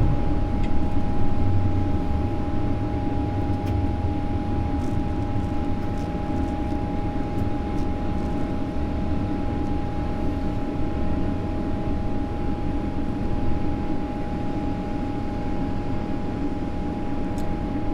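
Steady flight-deck noise of a Boeing 777-300ER climbing out after takeoff: a low rumble of its GE90 engines and airflow, with a thin steady tone above it. The noise eases slightly over the first couple of seconds.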